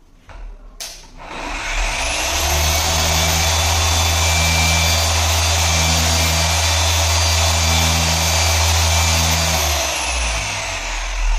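Electric car polisher with a yellow foam finishing pad spins up about a second in, runs steadily at speed with a low hum and a high whine, then winds down near the end. It is spreading polishing compound over the pad to prime it, so that no dry spots are left to scratch the paint.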